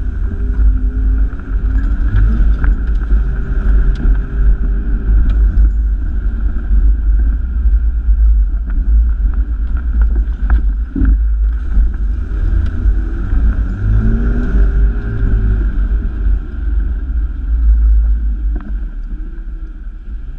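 Four-wheel drive's engine heard from inside the cabin over a deep low rumble, revving up and easing off twice while driving a rutted mud track, with a sharp knock about eleven seconds in.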